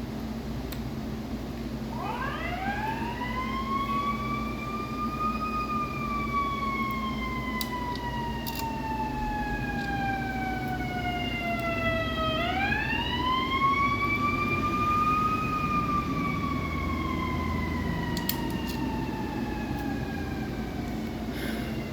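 Emergency vehicle siren wailing: it rises about two seconds in, falls slowly, rises again midway and falls off near the end. A few faint clicks sound over a steady low hum.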